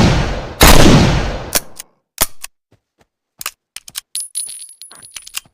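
Smith & Wesson 686 .357 Magnum revolver: the tail of one shot, then a second loud shot about half a second in. After these come separate sharp metallic clicks and, near the end, a light high-pitched metal jingle.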